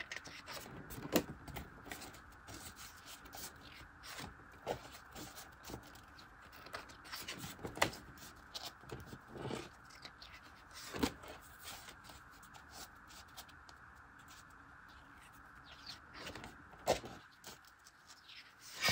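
Paper pages of a spiral-bound desk calendar being flipped over one after another: soft rustles and flicks, with a few sharper page flips.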